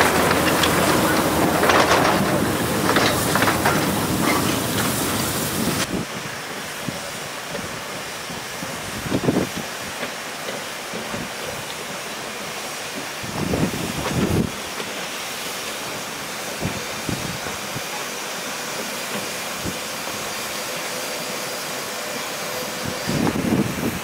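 Narrow-gauge (760 mm) forest-railway steam locomotive hissing steam. The hiss is loud for about the first six seconds, then drops suddenly to a quieter hiss, with a few short louder bursts about nine seconds in, around thirteen to fourteen seconds, and near the end.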